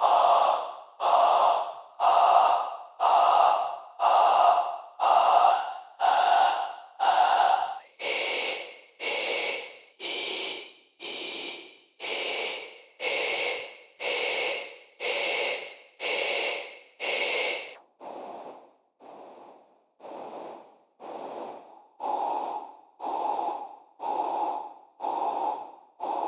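Artificial breathing synthesised in Pro Tools: generated noise shaped by a vowel filter and reverb, repeating in pulses about once a second, each one starting strong and fading like a breath. About eight seconds in, the vowel colour shifts to a thinner, brighter one. The pulses turn fainter around eighteen seconds, then the darker open vowel returns.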